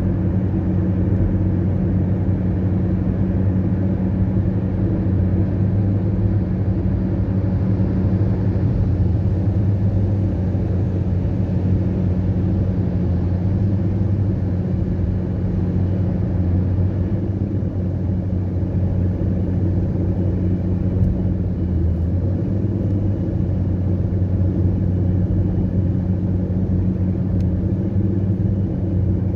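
Car cabin noise while driving at highway speed: engine and tyre-on-road noise as a steady low hum.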